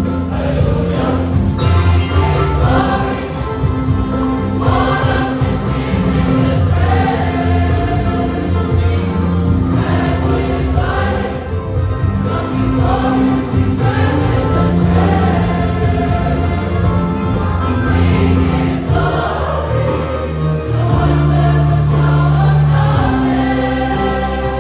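Church choir singing a hymn in parts, with sustained low accompanying notes beneath the voices.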